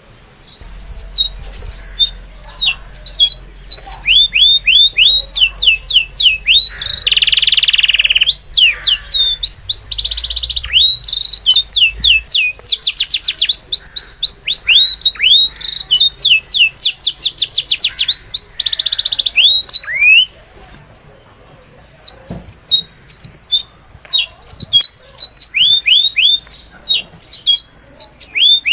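Small birds chirping in quick runs of high, downward-sweeping notes, several a second, with a few harsher buzzy calls mixed in. The chirping pauses briefly about two-thirds of the way through.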